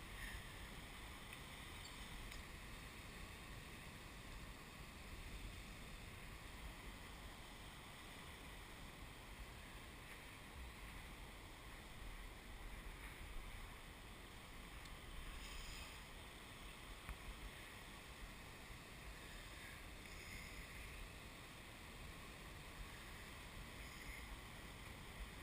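Faint, steady wash of big ocean waves breaking in the distance, a low even rumble and hiss.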